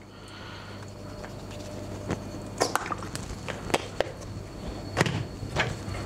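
Kitchen handling: a run of sharp clicks and knocks starting about two and a half seconds in, as the olive-oil bottle is set down on the counter and things on the tray are touched. A low steady hum runs underneath.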